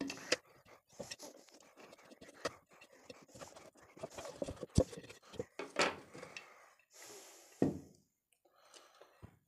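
Knife cutting and prying a hardened rubber safety valve out of a pressure cooker lid: irregular scrapes, clicks and taps of the blade working at the rubber and the lid.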